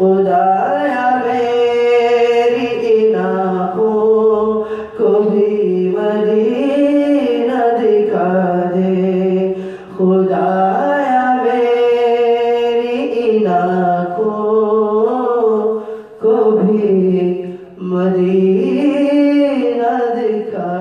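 A man singing an Urdu naat in long, bending melodic phrases, over a steady low drone. The phrases break off about every five seconds, and the singing fades near the end.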